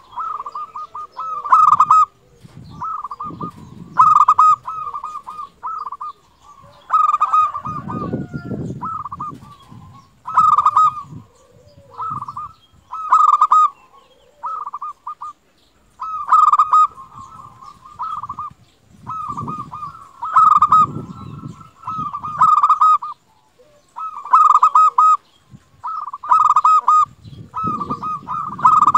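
Zebra dove (perkutut) cooing: repeated short phrases of rapid stuttering notes, one phrase every second or two.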